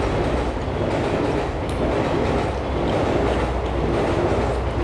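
Steady, loud rumbling background noise with a low hum, unchanging throughout.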